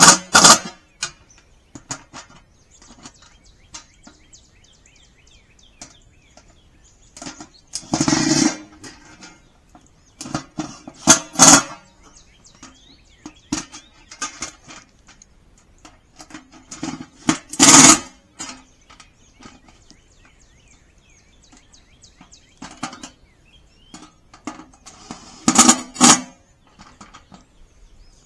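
Cordless drill driving the raised bed's panel screws into wing nuts held with pliers, in short bursts of about half a second to a second, five times with pauses between.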